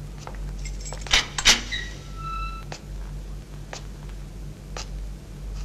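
A barred steel gate clanking open with two sharp metallic bangs about a second in and a short ringing after them. Slow footsteps on a hard floor follow at about one a second, over a low steady hum.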